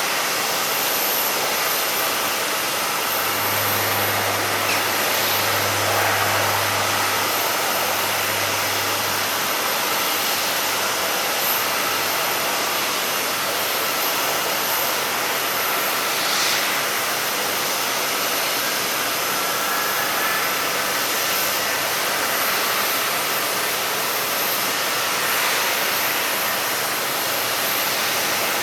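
Jet airliner engines running on the airport apron: a steady rushing noise. A low hum swells three times a few seconds in.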